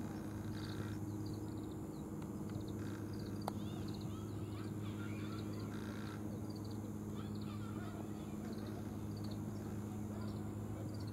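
Faint small-bird chirps and twittering come and go over a steady low hum.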